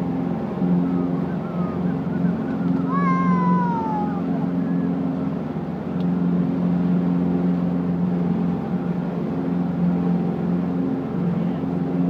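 Motorboat engine running under way with a steady low drone over the rush of its churning wake. About three seconds in, a short high cry glides downward once.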